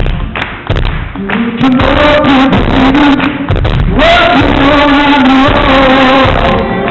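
Live rock band playing with a male voice singing long held, sliding notes, recorded from the audience with poor, muffled sound. A few drum thumps come in the first second before the singing enters.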